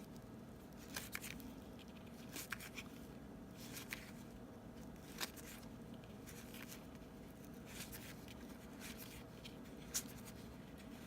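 Baseball cards being handled and flipped through by hand: faint, scattered ticks and slides of card stock, a handful over several seconds, over a faint steady room hum.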